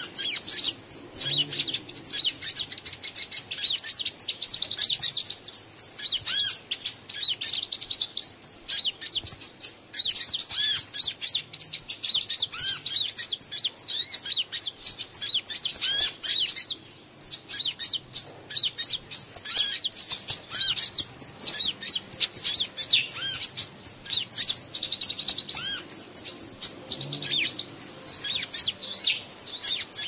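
Purple-throated sunbirds (Leptocoma sperata) calling: a dense, unbroken stream of rapid, high, thin chirps and twitters, several calls overlapping. These are female alarm calls, the cry of a threatened hen, layered together as a lure to draw in wild sunbirds.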